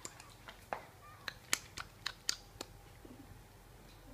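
A series of sharp, irregular clicks, about eight in the first three seconds, over a faint low hum.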